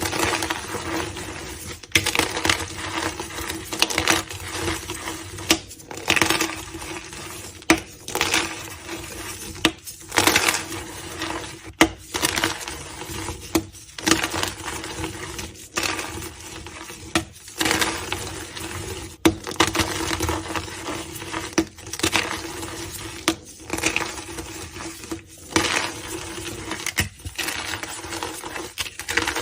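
Blocks of gym chalk being crushed, crunching and crumbling in repeated squeezes with sharp cracks every second or two, over a faint steady low hum.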